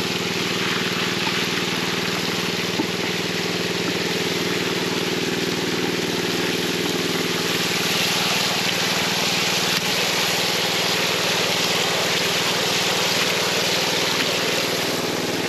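Small engine-driven water pump running steadily, with water gushing and splashing through the sluice's PVC spray bar and hopper as material is rinsed out of a bucket.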